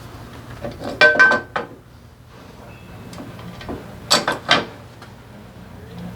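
Metal parts and tools handled on a workbench: two short bursts of clinking and rattling with a metallic ring, the first about a second in and the second about four seconds in, over a faint steady hum.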